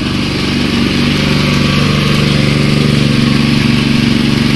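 The small engine of a sugarcane juicer runs steadily, driving the roller press.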